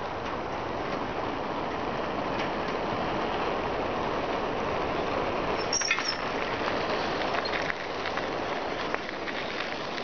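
Steady rolling and riding noise of a bicycle on a park path, picked up by a compact camera's microphone under a fluffy fur windscreen that keeps the head wind down to a soft rush. A brief high chirp sounds about six seconds in.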